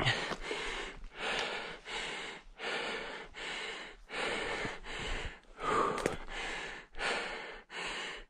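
A man panting hard, a quick, even run of loud breaths in and out, about one and a half a second.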